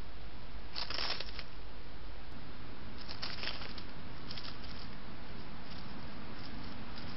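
An Apodemus field mouse rustling through dry leaf litter in short scrabbling bursts, a few times, over the steady hiss of a trail camera's microphone.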